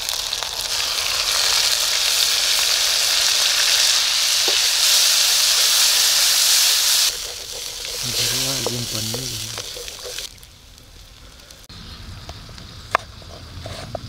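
Spice paste poured into hot oil and onions in an iron kadhai, sizzling loudly, then cutting off abruptly about seven seconds in. Quieter frying and stirring with a wooden spoon follow, and near the end there is a sharp tap of a knife on a wooden chopping block.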